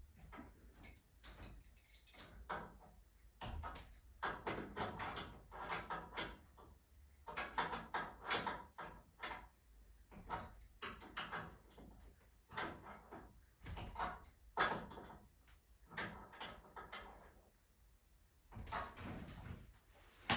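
Irregular metallic clicks, knocks and rattles from hands-on work on garage door torsion spring hardware, coming in clusters with short pauses between them.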